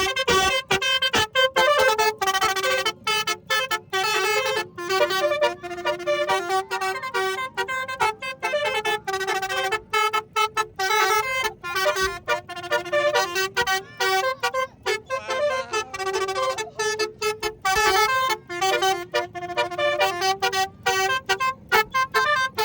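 A 12-trumpet telolet horn set, driven by a melody module, playing a tune. The horn notes are quick and choppy, with many short breaks between them.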